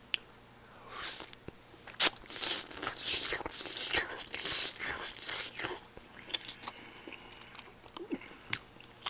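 A person chewing and crunching food close to the microphone: a sharp click about two seconds in, a few seconds of dense crunching, then fainter scattered chewing clicks.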